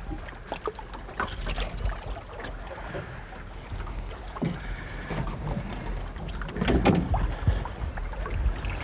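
A hooked dourado splashing at the side of an aluminium boat as it is lifted out of the water, with water sloshing and scattered knocks against the hull over a steady low rumble. A louder cluster of splashes and knocks comes near seven seconds in.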